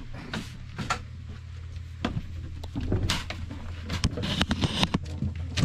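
Scattered knocks and clicks of a person moving about and stepping in an RV entry doorway, a cluster of them about three seconds in, over a steady low hum.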